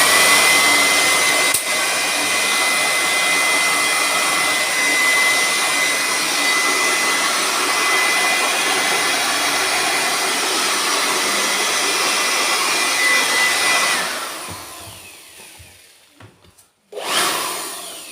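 Electric blower-vacuum, 400 W at 13,000 RPM, running at its single full speed: a loud rush of air with a steady high whine. About 14 seconds in it is switched off and winds down, then it surges again briefly near the end.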